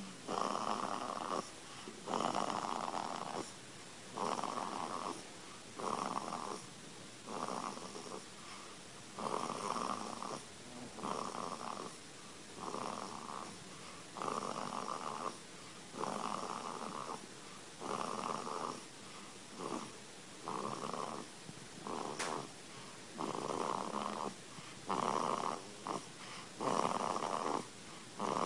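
A three-week-old baby snoring: a rasping noise on each quick breath, repeating roughly every second and a half.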